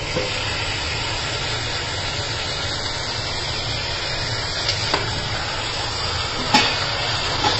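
Mutton pieces and onions sizzling in hot desi ghee in a pressure cooker, a steady hiss. A metal spoon knocks lightly against the pot twice in the second half.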